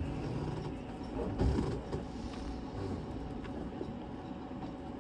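A low steady rumble, with a dull knock about a second and a half in and a few faint clicks of hand tools on the engine's mounting bolts.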